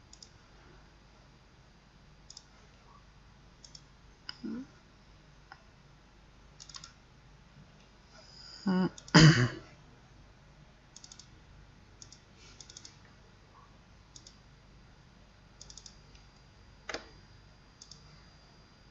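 Computer mouse clicking: short sharp clicks, many in quick pairs, coming in scattered clusters. About nine seconds in, a person clears their throat once, the loudest sound.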